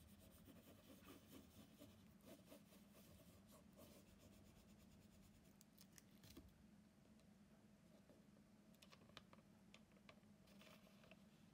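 Faint scratching and rubbing of a bamboo-covered baren burnishing thin paper over an inked lino block, over a low steady hum, with a few light clicks in the second half.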